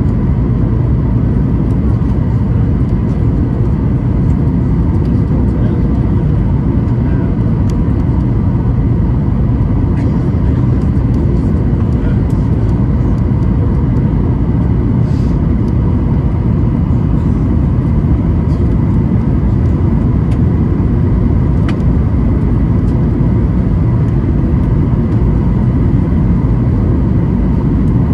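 Steady cabin noise of a Boeing 737-800, its CFM56 engines and the airflow making a deep, even rumble with a few faint steady tones above it.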